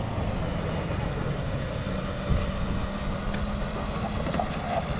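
Engine of a homemade three-wheeled all-terrain motor vehicle running steadily as it drives along.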